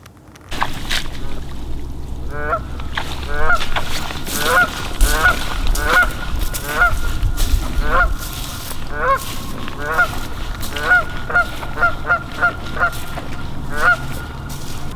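Goose honks in a rapid series of short, clipped calls, starting about two and a half seconds in and coming one or two a second, closest together near the end, over a low rumbling noise.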